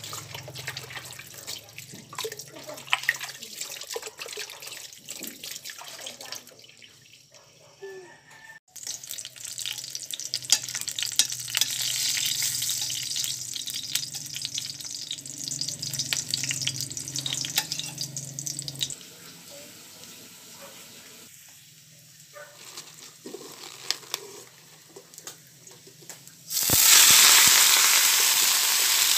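Water and wet leafy greens being handled in a metal colander, then garlic cloves frying in oil with a steady sizzle. Near the end the wet greens go into the hot oil and set off a sudden, loud sizzle.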